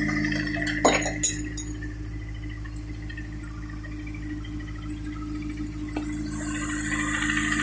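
Engine of an AP1 Honda S2000, a 2.0-litre four-cylinder, running with a steady hum, recorded for a tick/rattle noise the owner is chasing. A few sharp clicks come about a second in.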